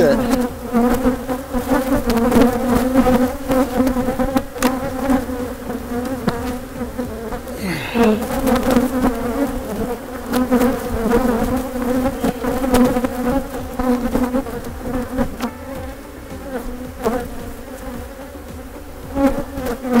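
Honeybees buzzing in a dense, steady hum around an opened hive as frames covered in bees are lifted out, with a few light knocks.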